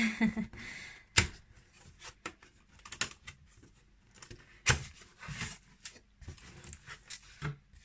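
A cardboard box being opened by hand: scattered clicks and knocks with scraping and rustling of the cardboard and packaging, the sharpest click about a second in and another near five seconds.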